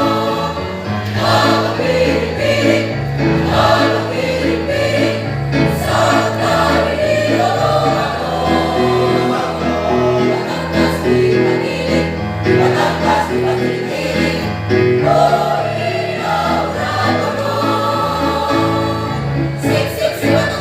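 Choir singing with an instrumental accompaniment carrying a bass line.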